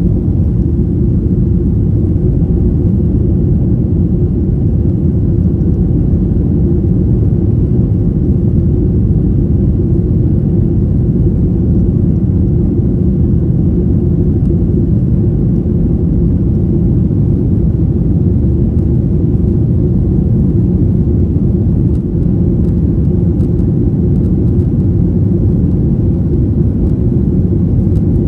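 Boeing 737-800 jet engines at takeoff thrust heard inside the cabin as the airliner lifts off and climbs: a steady, deep rumble.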